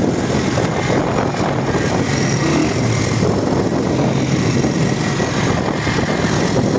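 Motorcycle under way on a road, its engine running steadily beneath a constant noisy rush.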